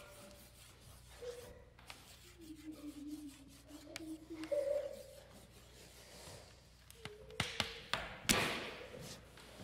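Quiet classroom room sound: faint, brief murmurs, then a few sharp taps and knocks in the last few seconds, the loudest a little past eight seconds in.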